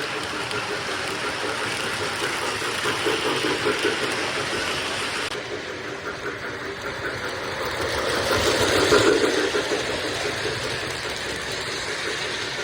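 Diesel freight locomotive engine running steadily, swelling louder about eight to nine seconds in, then easing back.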